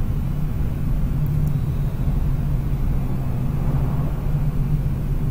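Steady low mechanical hum, a constant drone with no change.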